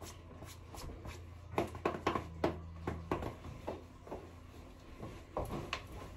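Scattered light clicks and rustles of handling and movement close to the microphone, over a faint low hum.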